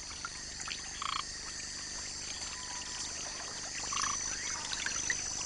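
Rainforest ambience with frogs calling: a couple of short pitched notes about a second in and again near four seconds in, over a steady high hiss.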